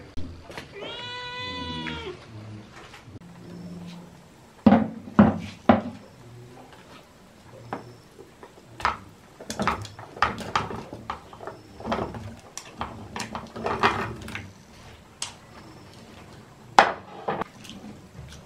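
A single drawn-out animal call about a second in, steady in pitch and then dropping. After it, a long run of knocks and clinks as chopsticks push corn, potato and chicken pieces off a plate into a metal pot of broth; the loudest knocks come about five seconds in and near the end.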